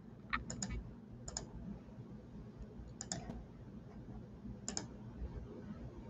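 Faint, scattered clicks of computer keys being pressed, in small groups of two or three about every second or two, stopping about two-thirds of the way through.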